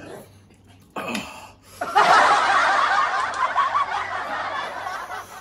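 Loud, breathy snickering laughter close to the microphone. It begins about two seconds in and fades out over about three seconds, after a short sharp breath about a second in.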